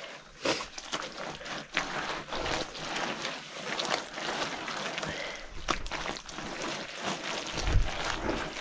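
Wet mud plaster being smeared by hand over an earthen floor: irregular wet sloshing and rubbing with many small slaps, and a thump near the end.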